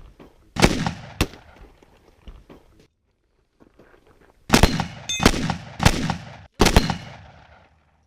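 Shotgun shots in a practical shooting stage: two about half a second apart, then after a pause of about three seconds four more in quick succession, each with a ringing tail.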